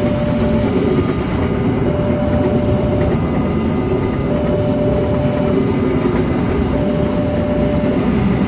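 Passenger train running past over the rails with a loud, steady rumble. Over it, the level-crossing warning alarm alternates between a higher and a lower electronic note, each held about a second.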